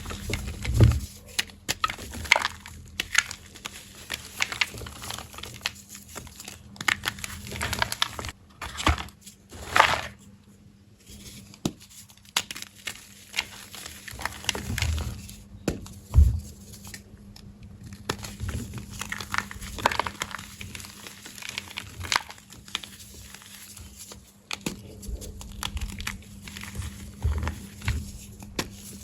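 Blocks of gym chalk being crushed, a run of irregular crisp crunches and crumbling, with a few louder cracks about a second in, near 8 to 9 seconds and around 16 seconds.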